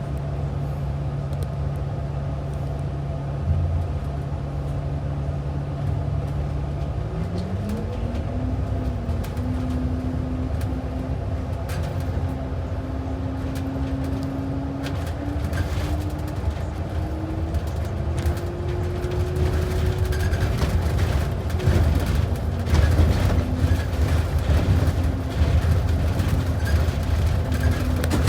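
Transit bus heard from inside the cabin, pulling away: the engine's steady low hum at rest rises in pitch as the bus accelerates, keeps climbing, then drops once at a gear change about three quarters of the way in. After that, road noise and rattling grow louder.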